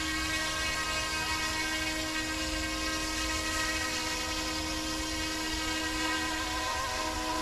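UXIANG F09-S electric RC scale helicopter hovering: a steady whine of its motor and rotor, a strong hum with many higher tones held level.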